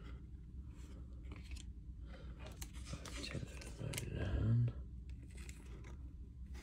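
Hockey trading cards and their pack wrapper being handled: a run of short scratchy rustles as card stock slides and flicks against itself and the wrapper. A short low hum about four seconds in is the loudest moment.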